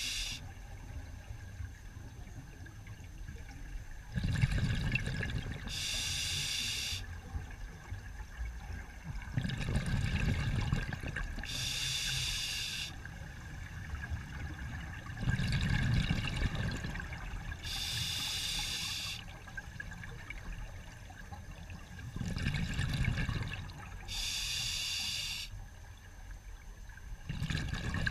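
Scuba diver breathing underwater through a regulator: a short hiss on each inhale, about every six seconds, and a low bubbling rumble on each exhale.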